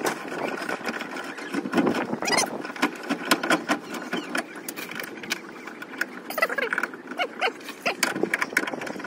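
Socket ratchet clicking in short, irregular runs as the rusted tow bar bolts on a Land Rover Defender's rear crossmember are worked loose. A few short chirps come in around six to seven and a half seconds in.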